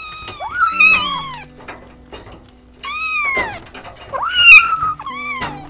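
Kittens meowing repeatedly: about five high-pitched meows, each rising then falling in pitch, the loudest about four and a half seconds in.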